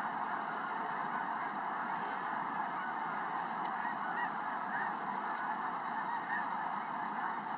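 A massed flock of snow geese calling all at once: a dense, steady din of countless overlapping honks with no let-up.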